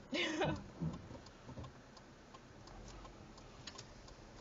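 Car turn-signal indicator clicking steadily in the cabin, with a short burst of a person's voice right at the start.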